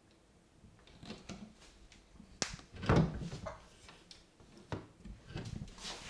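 An Argus monitor lizard working a hamster in its jaws on a bathtub floor: irregular knocks, taps and scrapes, the two loudest a little over half a second apart near the middle.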